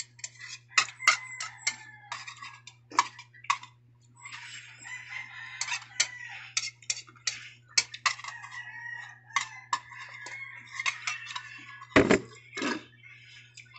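Slurping and sipping udon noodles and broth from a bowl, with the chopsticks clicking against the bowl, then a loud thump about twelve seconds in as the bowl is set down on the table.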